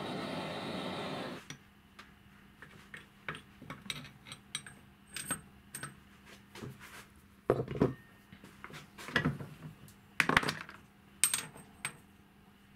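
A torch flame hisses steadily on a steel disc in a vise and shuts off about a second and a half in. Light metallic clinks and taps follow as the two glued steel discs are worked apart by hand against the vise jaws, with a few louder clanks through the second half.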